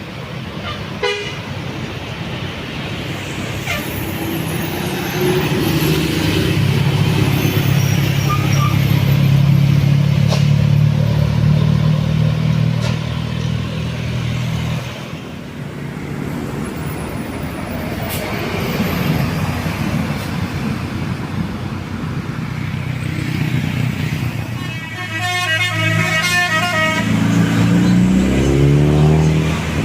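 Tour bus engines passing on a climb, with a multi-tone telolet horn playing a fast repeating melody about 25 seconds in. An engine revs up, rising in pitch, near the end.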